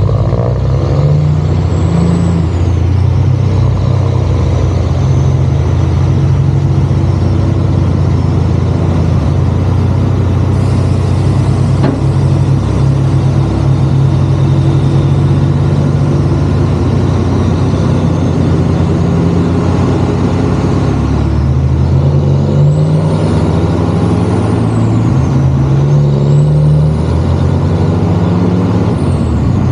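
Kenworth C500 truck's Cummins ISX diesel engine running loud and steady. Its revs step up and down several times, and a faint high whistle rises and falls twice near the end.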